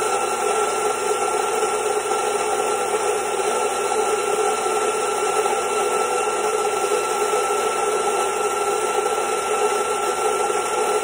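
Electric coffee grinder running steadily, grinding espresso beans into a bottomless portafilter. It makes an even motor whir with a constant high whine on top.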